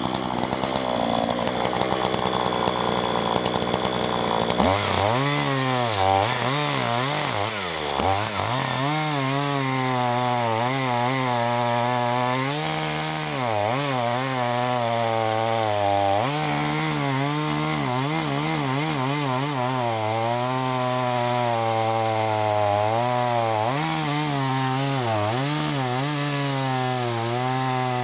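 Chainsaw running at high revs while cutting through an oak log, its engine note wavering up and down as the chain bites into the wood. About four and a half seconds in, the sound changes from a rough, noisy rasp to a clearer pitched engine note.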